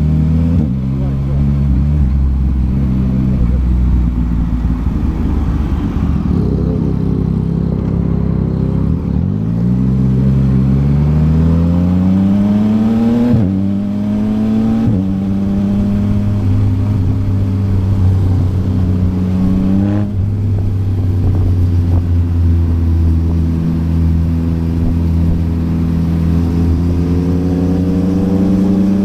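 Yamaha MT-09's 890 cc inline-three engine through a Yoshimura R11 exhaust while riding: revs climb and drop sharply at gear changes, about a third and two thirds of the way in, with steady cruising between, then climb again near the end.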